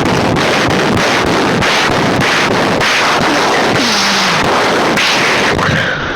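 Heavy breathing blown straight into the microphone, loud enough to overload it into a harsh rushing noise, pulsing about four times a second.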